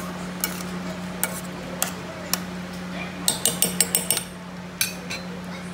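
Metal spoon clinking against the side of a stainless steel pot while stirring a thick bean and vegetable stew, in scattered single knocks with a quick run of clinks a little past halfway. A steady low hum runs underneath.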